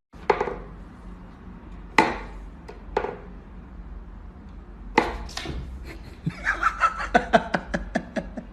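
Wooden whack-a-mole cat toy box knocking as its pegs are pushed up and a cat bats at the pop-up mole. A few separate wooden knocks, then a quick run of clacks near the end.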